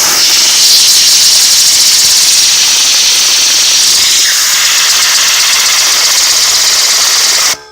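A loud, steady blast of air hissing onto fidget spinners to whip them up to speed, cutting off suddenly near the end.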